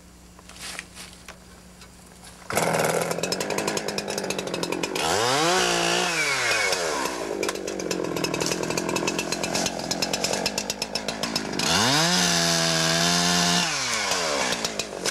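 Two-stroke chainsaw idling quietly, then opened to full throttle about two and a half seconds in as it cuts through a released spring pole. The engine pitch rises and falls twice as the chain works through the wood.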